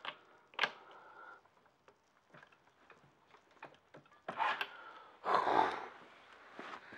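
Hard breathing and straining exhalations from a man heaving on a long extendable ratchet against a tight motorcycle clutch nut, with a sharp click about half a second in and light metallic ticks from the tool. Two loud breaths come near the end.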